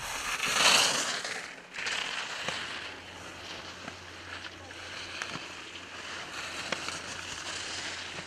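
Rushing wind and water noise, surging loudly about a second in, with scattered light clicks and knocks.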